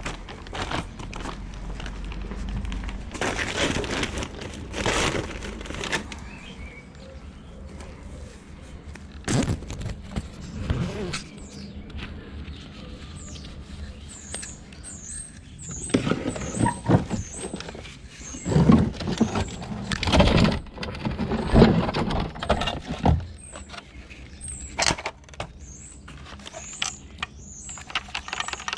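Rubble and scrap being shifted in a skip: irregular scraping, knocks and clatter, busiest in the second half. A small bird chirps repeatedly over it in the second half.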